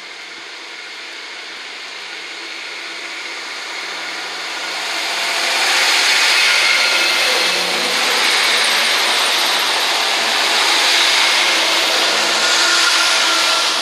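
Two coupled Class 158 Sprinter diesel multiple units pulling away and running past close by, their diesel engines and wheels growing louder over about six seconds, then holding steady as the coaches go by.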